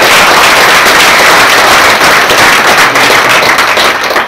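Audience applauding, a dense crackle of many hands clapping, fading near the end.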